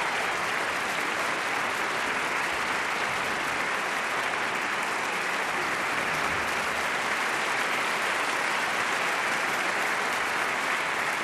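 Steady crowd applause, a dense even clapping with no pauses.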